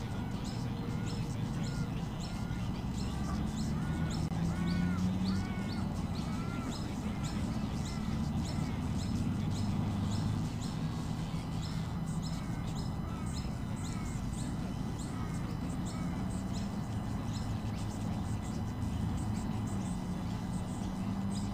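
Small birds chirping and calling in the surrounding bush: many short high chirps throughout, with a series of arched, repeated calls a few seconds in. A low droning hum runs underneath.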